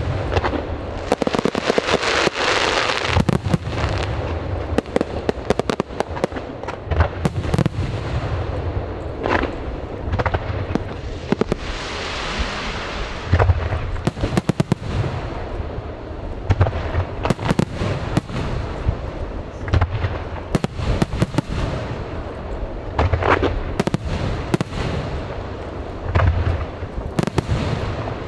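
Aerial fireworks display: a dense, irregular barrage of shells bursting with deep booms and sharp cracks, with crackling, hissing showers of effects between them.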